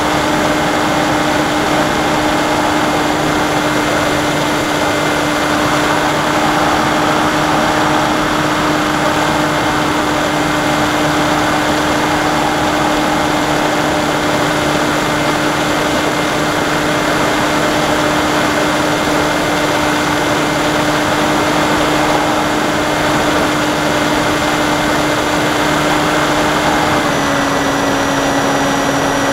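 Electric motor and propeller of an AXN Floater Jet RC plane running steadily in cruise, heard up close from the onboard camera: a steady whine over rushing airflow. Its pitch steps slightly lower near the end as the throttle eases.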